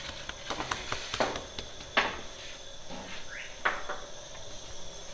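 Hands slapping and pressing sangak dough on a wooden peel: a few sharp slaps and knocks, the loudest about two seconds in.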